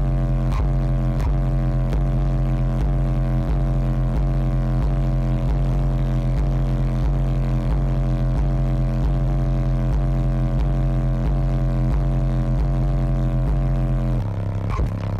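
Bass-heavy music played at high level through a car audio SPL subwoofer system, heard from inside the cabin: a deep, steady bass with an even beat a little under twice a second, the bass line changing near the end.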